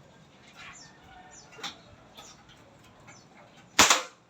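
A single shot from an Escopeta air pistol firing a pellet near the end: one sharp crack that dies away quickly. Faint animal calls sound in the background before it.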